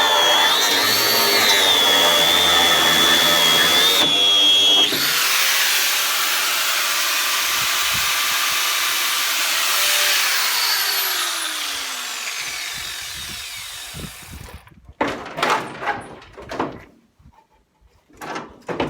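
Angle grinder cutting through corroded steel bolts, its motor whine wavering under load. After about five seconds the pitch slowly falls as the grinder winds down. Near the end come several separate metallic knocks and clatter.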